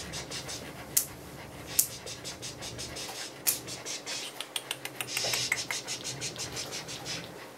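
Muzzled small dog panting rapidly, about five quick breaths a second, with a few sharp clicks standing out as the loudest sounds.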